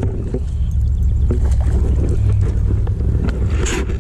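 Steady low rumble of wind on the microphone and water moving around a small fishing craft on a lake. Near the end comes a short splashy rush as a landing net is lifted out of the water.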